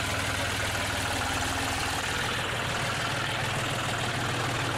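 John Deere tractor's diesel engine running steadily at low revs as the tractor drives slowly past through shallow floodwater.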